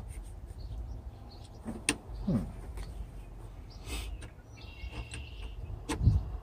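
Screwdriver clicking and scraping against a truck windshield wiper arm as it is pried at to release the arm from its pivot, a few sharp clicks over a steady low rumble.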